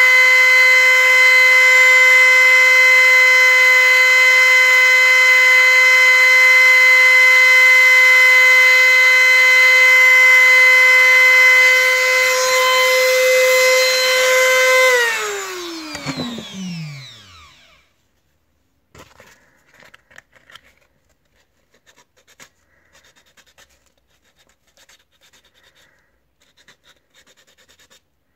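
Handheld rotary tool running with a steady high whine against the clipper's white plastic housing, then switched off about 15 seconds in and winding down over about two seconds. Afterwards faint scratching of sandpaper rubbing on the plastic housing.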